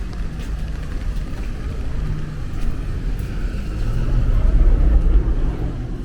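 A motor vehicle passing close by on a city street. Its engine hum and road noise build to a peak about five seconds in and then ease off, with a faint rising whine as it approaches.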